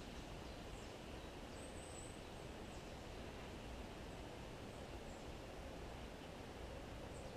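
Quiet woodland ambience: a steady low hiss with a few faint, short, high bird chirps scattered through it.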